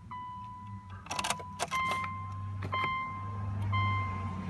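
A car's dashboard warning chime repeating a steady tone about once a second. Keys jingle and click in the ignition about a second in as the key is turned.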